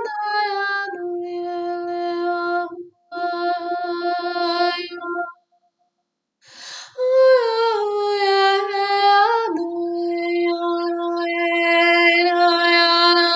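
A woman's voice toning wordless light-language sounds in long held notes. Two breaks come in the first half. Then a higher note slides slowly down and settles into a long steady tone.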